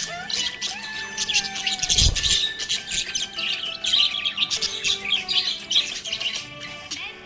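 A flock of budgies chattering with quick, continuous chirps and warbles over background music, with a brief low thump about two seconds in.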